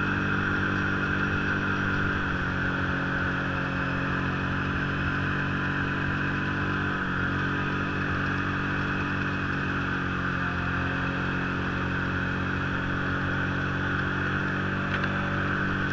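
Snowmobile engine running steadily at cruising speed, heard from the rider's seat. Its note shifts slightly about two seconds in and again about seven seconds in.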